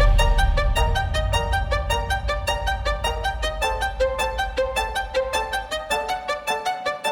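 Background music: a quick run of short violin-like notes, with the low bass fading out toward the end.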